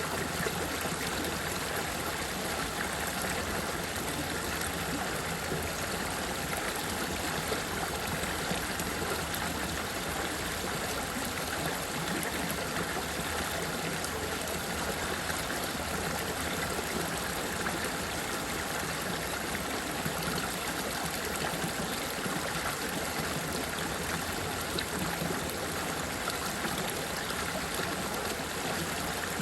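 Running water, a steady, even flow of a stream or trickle without breaks.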